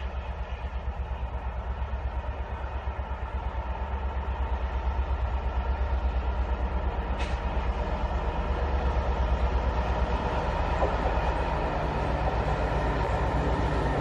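Approaching heavy locomotive running under power: a low, rhythmically pulsing engine throb with a steady hum above it, growing steadily louder as it nears.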